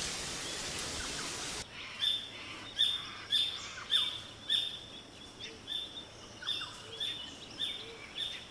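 Rainforest birds calling. A steady hiss cuts off abruptly under two seconds in, then comes a run of short, repeated high chirps at about two a second, with lower notes sliding downward among them.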